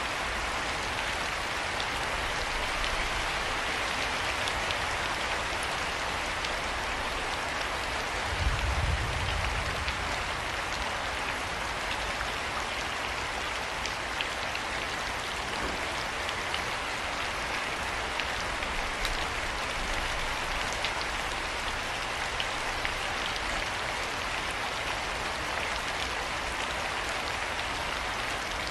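Steady rain falling, with scattered individual drops ticking sharply on a surface. A brief low rumble about eight and a half seconds in is the loudest moment.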